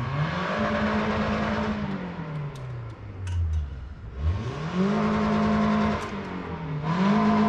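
A vehicle engine revved three times: each rev climbs, holds high for about a second, then drops back. The first comes right at the start, the second about four seconds in, the third near the end.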